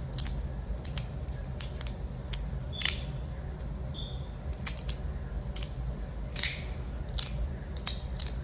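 Resin-printed magnetic fidget slider (Kladis3D Studios Verk) being slid back and forth by hand, its plates snapping into place with irregular sharp clicks, roughly a couple a second. A low steady hum runs underneath.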